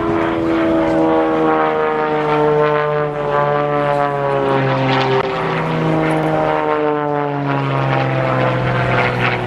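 Propeller drone of an Extra 300S aerobatic plane's six-cylinder Lycoming engine, its pitch sliding slowly down twice.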